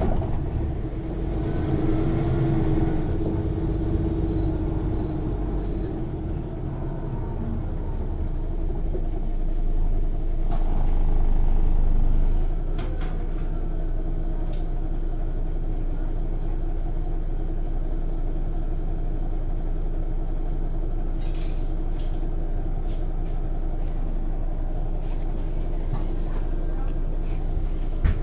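Interior sound of a Mercedes-Benz O 405 N1 city bus under way: the loud diesel engine runs steadily, pulling harder to a peak about ten to twelve seconds in, then easing off suddenly. The rear axle drive is heard clearly under the engine, with a few short hisses or clicks later on.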